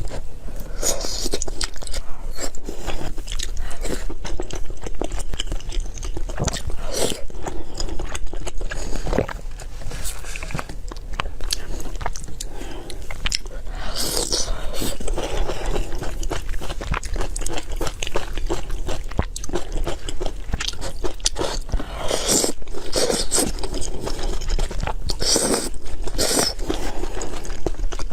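Close-miked chewing and biting of food, a continuous run of wet clicks and crunches with several louder bites scattered through.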